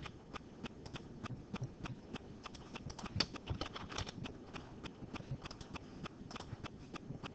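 Faint, irregular clicking of computer keyboard keys and mouse buttons, several quick clicks a second, as dimension values are typed and sketch lines picked.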